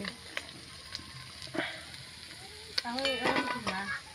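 Fish sizzling in hot oil in an iron wok, with a metal spatula scraping and tapping against the pan a few times. A short voice-like sound comes near the end.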